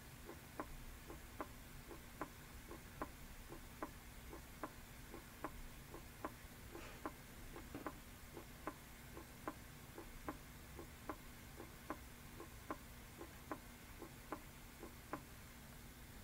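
Recorded normal human heart sounds: a quiet, steady lub-dub, each beat a pair of short thuds from the heart valves closing (the atrioventricular valves for the lub, the semilunar valves for the dub), at about 75 beats a minute.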